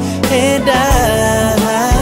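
R&B pop ballad: a male voice sings wavering, drawn-out vocal runs over a steady bass line and a soft beat.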